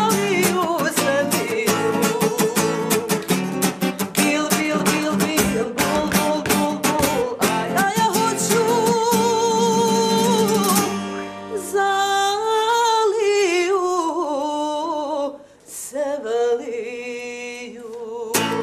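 A woman singing to a strummed acoustic guitar. About eleven seconds in the strumming drops away and she carries on nearly alone, in a wavering, ornamented line.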